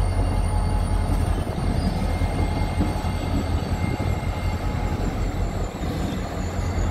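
EMD SD40E diesel locomotive running as it moves slowly away, a steady low rumble with a faint, wavering high whine above it that drifts slowly lower.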